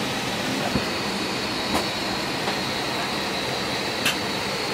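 Steady rushing cabin noise inside an Airbus A320 airliner, the air-conditioning and engine noise heard on board, with a thin high whine from about a second in and a few faint clicks.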